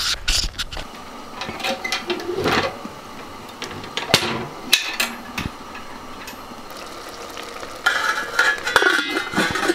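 Sharp metal clicks and knocks as the latch on a small metal wood stove's door is handled, then a spoon stirring and scraping in a steel pot of goulash near the end.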